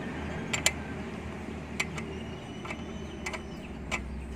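A handful of sharp metallic clicks and clinks from hand tools at work on a motorcycle's brake caliper bolts, spread out over the few seconds, over a steady low background hum.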